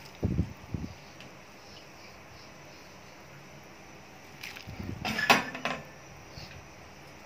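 Cooking pot being handled: two dull thumps just after the start, then a short clatter with a sharp metal clink about five seconds in.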